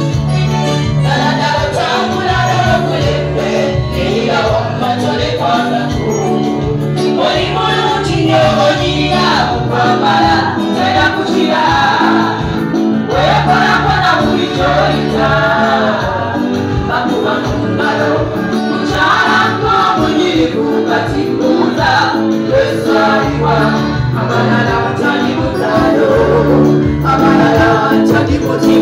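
Women's gospel choir singing together over a band backing with a steady bass line and beat.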